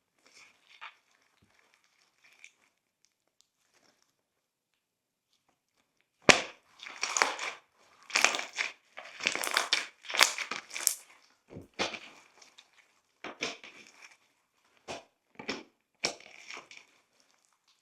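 Glossy slime being squished and pressed by hand, giving wet crackles and pops. There are only a few faint crackles at first, then from about six seconds in an irregular run of louder squishes and crackles.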